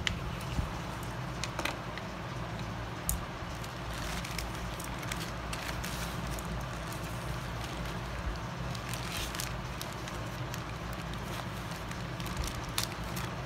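Plastic courier mailer bag crinkling and rustling as it is handled and smoothed flat by hand, with scattered small crackles and clicks.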